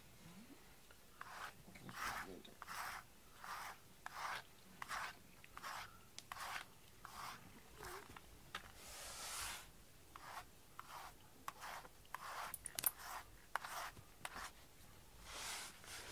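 Brush strokes through a cat's fur: short rubbing, scraping swishes repeating about one to two times a second, with a couple of small clicks near the end.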